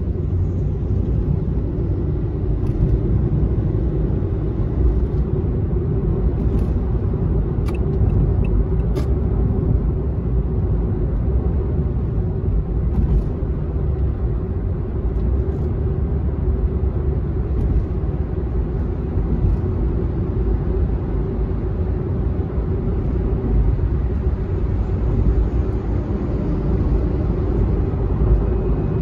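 Steady low road rumble of a car driving at expressway speed, heard from inside the cabin: tyre and engine noise.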